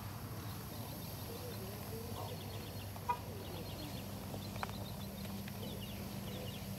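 Outdoor ambience: rows of faint, short, high bird chirps over a steady low hum, with a sharp click about three seconds in and a smaller one about a second and a half later.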